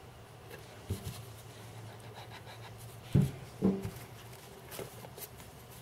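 Hands handling and pressing thin craft-foam strips against a jar, with faint rubbing and rustling and a few soft thumps; the two loudest come close together a little after three seconds in.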